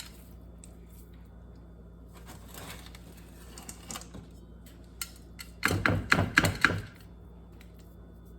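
A utensil knocking and scraping against a mixing bowl as brownie batter is moved into a baking pan: a few light knocks, then a quick clatter of about a second a little past halfway.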